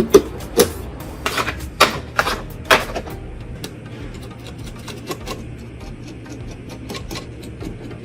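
Irregular clicks and knocks of PC hardware being handled during a build, loud and close together for the first three seconds, then lighter, sparser taps, over a low steady hum.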